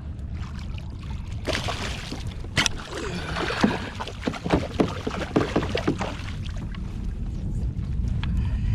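Water splashing and knocking against the side of a fishing kayak as a hooked fish is landed, busiest from about a second and a half in to six seconds in, over a steady low rumble.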